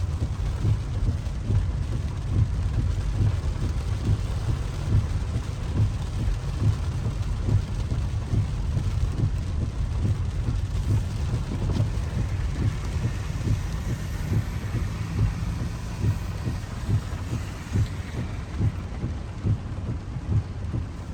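Rain pattering on a car's roof and windshield, heard from inside the cabin over a low, steady rumble of the moving car.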